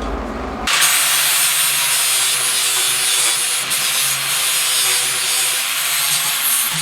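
A low rumble cuts off abruptly within the first second. It gives way to the loud, steady, harsh scraping hiss of a powered abrasive tool working steel.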